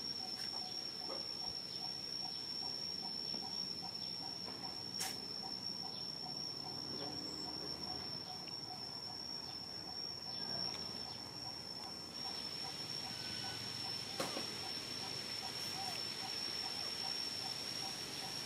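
Outdoor insect drone, a steady high-pitched tone, with a faint, evenly pulsing call beneath it. The high hiss thickens in the second half, and two sharp clicks stand out, one about five seconds in and one near fourteen seconds.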